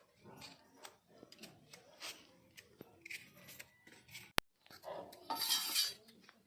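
Kitchen handling sounds: a run of short clicks and scrapes of utensils against dishes, with a sharp click a little after four seconds. A louder rasping scrape follows at about five seconds and lasts about a second.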